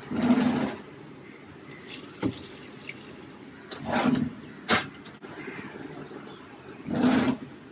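Water poured from a pot into flower pots, splashing and dripping onto the soil, with a few sharp knocks from the window frame and grill.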